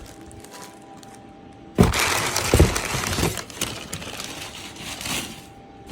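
Rustling and crinkling of packaging as a shipping box is opened and unpacked. The loudest part comes about two seconds in and lasts about a second and a half, followed by a few softer rustles.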